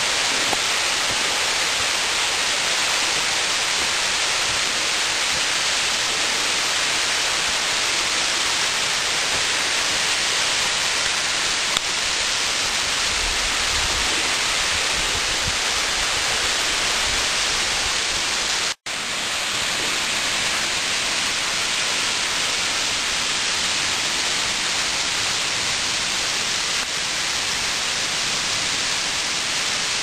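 Waterfall: a steady rush of falling water, cut off for a split second about two-thirds of the way through.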